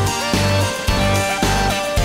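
Background music with a steady beat about twice a second and a melody that slides between notes.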